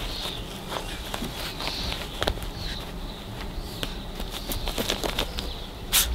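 Two puppies, a Weimaraner and a Pomeranian, scuffling in a tug of war over a plush toy on concrete: scattered clicks, scrapes and knocks of paws and claws, with a sharper knock near the end.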